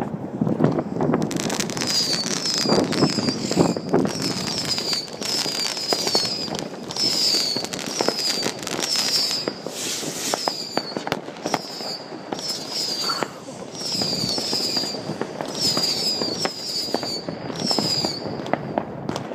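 Fireworks rockets and firecrackers going off: a continuous rumble of bangs and crackling with sharp nearer cracks. A short, high, falling whistle repeats over and over, roughly every half second.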